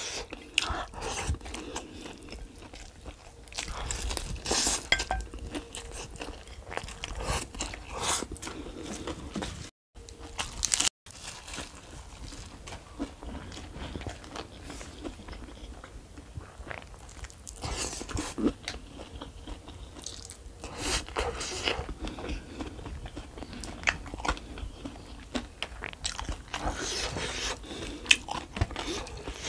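Close-miked eating: crunching bites and chewing of fried chicken and rice eaten by hand, in irregular bursts. The sound drops out for an instant twice about ten seconds in.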